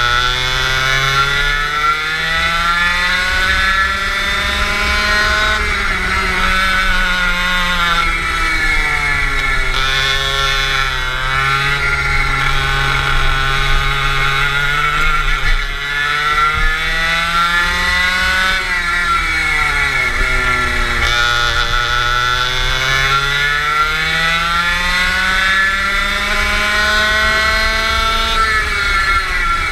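Go-kart engine heard from the driver's seat, its pitch climbing as the kart accelerates along the straights and dropping back as it slows for the corners, rising and falling repeatedly.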